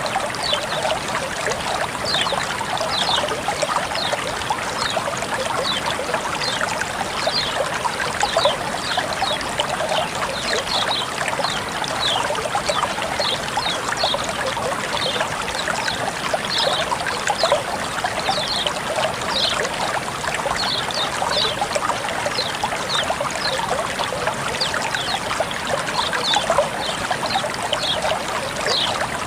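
Flowing water trickling and babbling steadily, with a constant rush and many quick, bright splashy plinks over it.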